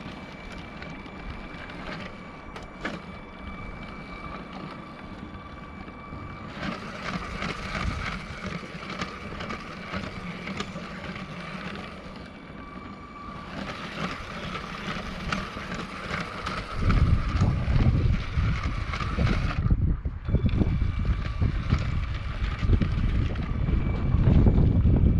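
Lego 7939 cargo train's Power Functions electric train motor whining steadily as the train runs over plastic track, with occasional clicks. About two-thirds of the way through, wind buffeting the microphone adds a loud low rumble that becomes the loudest sound.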